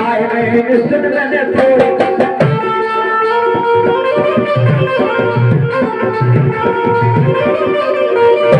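Instrumental passage of a devotional bhajan: harmonium holding sustained chords over a hand drum playing a steady beat with deep bass strokes. A quick run of sharp clicks sounds about two seconds in.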